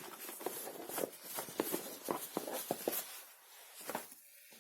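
Items being pulled out of a cardboard keyboard box: packaging rustling with irregular light knocks and taps, quieter near the end.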